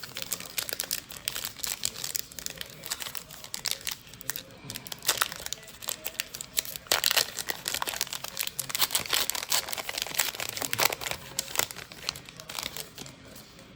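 Trading-card pack wrapper crinkling and crackling as it is handled, in dense irregular bursts.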